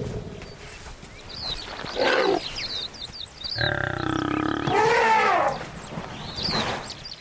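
Calls of large wild animals in a standoff between elephants and lions, a threat display. A long pitched call comes about three and a half seconds in, followed at once by a shorter call that rises and falls, with small bird chirps high above.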